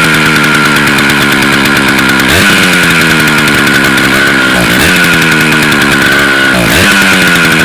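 Vintage Stihl 051 AV two-stroke chainsaw running loud, blipped up in revs about three times, the pitch jumping up sharply and sagging back between. It runs lean, which the owners think needs the carburettor's low jet set richer or a carb clean.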